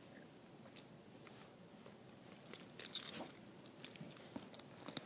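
Faint handling noise: a few scattered soft clicks and rustles over low room hiss, from the camera and hands moving against the leather couch.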